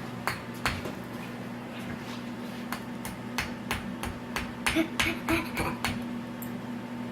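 Sharp, irregular taps of a small hammer striking the dig block of a diamond excavation kit, coming about three a second in the middle, over a low steady hum.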